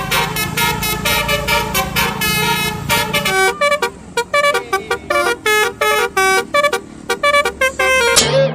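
Multi-tone 'telolet' bus horn playing a quick tune of short notes that step up and down in pitch. A low steady hum lies under it for the first three seconds or so.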